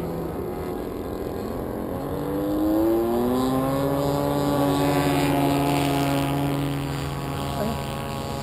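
Electric motor and propeller of a Windrider Bee2 RC flying wing, a pitched hum that rises in pitch about two to three seconds in as the throttle comes up, holds steady, then eases off near the end.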